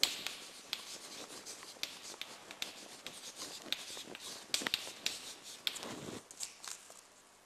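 Chalk writing on a blackboard: a quick run of scratches and small taps as letters are stroked out, stopping shortly before the end.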